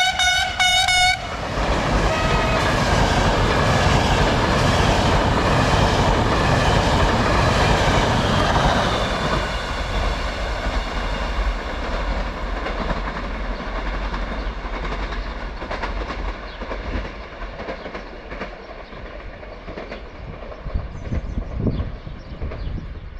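A Siemens HellasSprinter electric locomotive's horn ends about a second in. Its intercity train then runs past at speed: a loud rushing rumble of wheels on rail that slowly fades, with wheels clacking over rail joints near the end.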